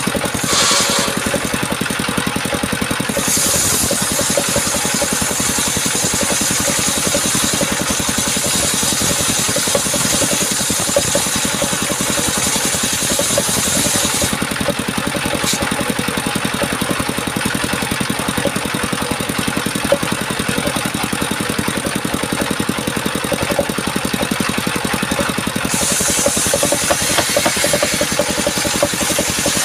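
Chainsaw engine running steadily, with a brighter hissing edge over two stretches, the first from about three seconds in to the middle and the second near the end, as it cuts through the coconut trunk.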